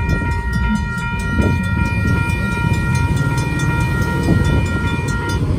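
Railroad crossing bell ringing in rapid, even strokes while the crossing gates rise, cutting off suddenly near the end as the gates reach upright. A loud low rumble runs underneath.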